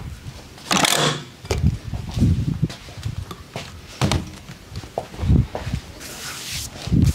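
Hands working on a person's body during a barber's massage: irregular dull slaps and pats with rubbing in between, and a short hiss near the end.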